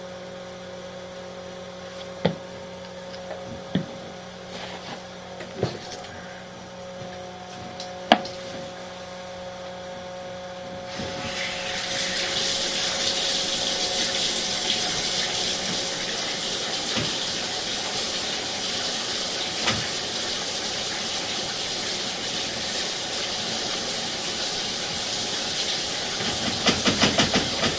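Steady electrical hum with a few sharp clicks, then about eleven seconds in water starts rushing and keeps running as a steady hiss. A quick run of clicks comes near the end.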